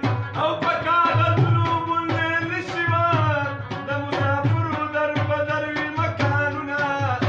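Music: a song with a singing voice carrying a bending melody over a steady, even drum beat.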